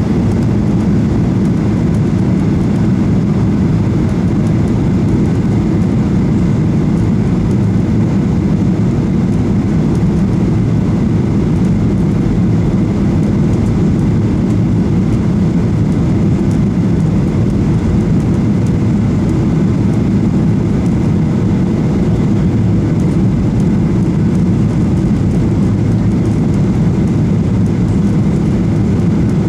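Cabin noise inside a Boeing 737-800 on final approach: a steady, low rumble of airflow and CFM56 engines with a faint constant tone, unchanging throughout.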